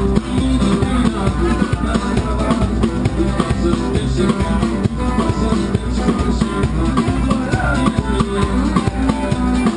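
Live street band playing upbeat dance music, with a drum kit keeping a steady beat under bass and guitar.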